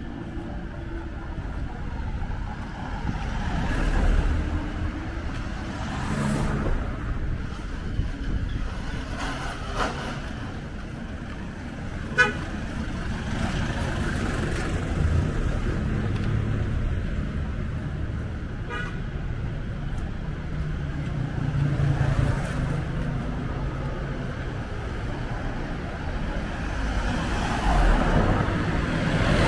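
Street traffic passing close by: car, motorcycle and jeepney engines rising and falling, with a short horn toot about twelve seconds in and another around nineteen seconds.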